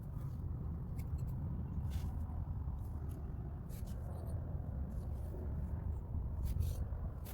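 2013 Nissan Cube driving, heard from inside the cabin: a steady low road and engine rumble, with faint scattered ticks and scrapes.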